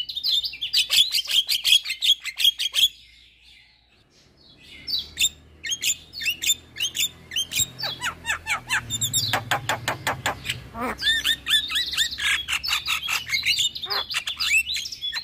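Javan myna singing a fast, varied chatter of whistles and clicks. It breaks off for about two seconds a few seconds in, then starts again.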